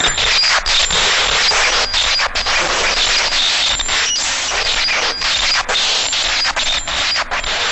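Dragon Ball Z–style ki energy sound effect: a loud, continuous crackling rush of noise that flickers with many brief dips.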